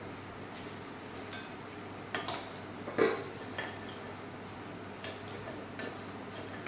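A metal utensil stirring and scraping in a kadai, with a few irregular clinks against the pan, the loudest about three seconds in, as spice powders are sautéed into the onions.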